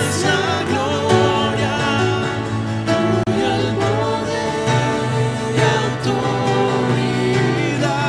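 Live worship band playing: strummed acoustic guitar and a Nord Stage keyboard, with several voices singing together.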